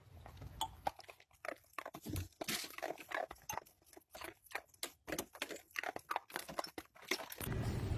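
A pet, likely a dog, chewing something crunchy: short irregular crunches, several a second. Near the end it gives way to a steady low hum.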